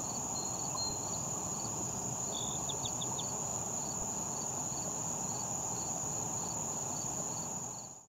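Insects trilling in a marsh: a continuous high-pitched drone, with a second, softer chirp repeating about twice a second. A few brief higher notes come about two and a half seconds in, and the sound fades out at the very end.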